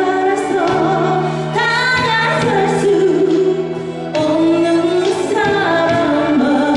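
A woman singing a Korean ballad live into a handheld microphone, holding long wavering notes over instrumental accompaniment.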